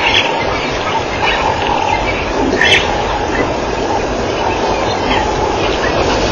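African wild dogs giving short, high-pitched twittering chirps, several spread through, the clearest about two and a half seconds in, over a steady loud rushing noise.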